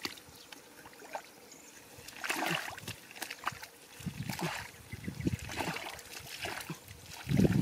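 Hands and legs working through shallow muddy pond water: sloshing and splashing with squelching mud, in scattered bursts. The loudest and deepest splash comes just before the end.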